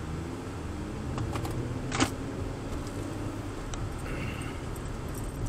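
Steady low rumble of a car driving, its engine and tyre noise heard from inside the cabin, with one sharp click about two seconds in.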